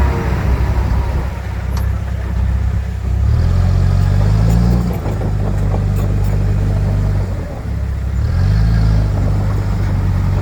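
Heavy diesel engine of earthmoving equipment running and revving up twice, about three seconds in and again about eight seconds in.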